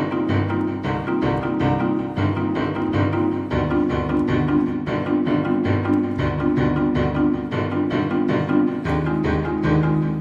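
Instrumental music with a steady pulse of repeated notes, about three or four a second, over a low bass line that moves from note to note.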